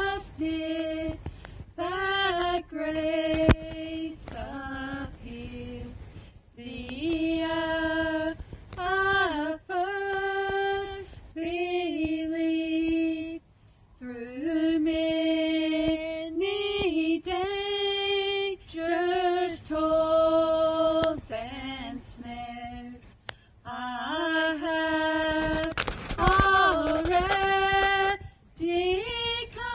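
A young female voice singing a slow hymn solo, holding long notes with short breaths between phrases. A single sharp click sounds a few seconds in.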